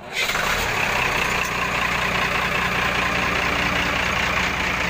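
Tata 4018 truck's diesel engine starting up, set off by bridging the starter motor's terminals, then running steadily. The sound comes in suddenly just after the start and holds at an even level.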